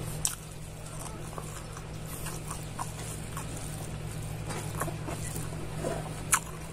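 Close-up chewing and mouth smacking while eating rice and spicy meat pickle by hand, with scattered small clicks and a sharper click about six seconds in. A steady low hum runs underneath.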